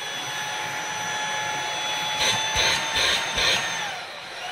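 Dreame V11 cordless stick vacuum's motor running in Eco mode with a steady high whine, broken by three short rushes of air about halfway through. The whine winds down near the end.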